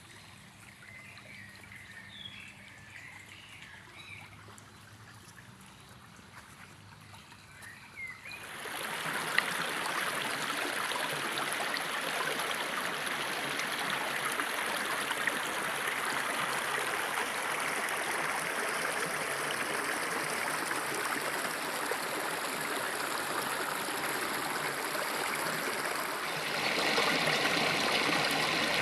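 A few faint bird chirps over a quiet background, then about eight seconds in the steady rush of a waterfall comes in and carries on, getting louder near the end.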